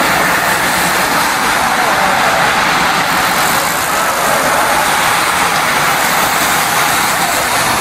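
A pack of road racing bicycles passing close by: a steady whirring hiss of tyres on asphalt and drivetrains, with no single sharp event.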